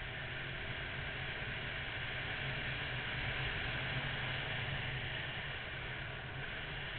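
Onboard riding sound from a Honda VFR800 motorcycle at a steady cruise: wind and road noise rushing over the bike-mounted camera, with the V4 engine's low hum underneath, swelling slightly in the middle.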